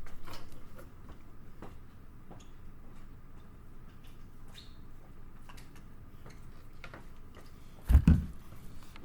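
Paper being handled: faint scattered rustles and light taps, with one loud thump about eight seconds in.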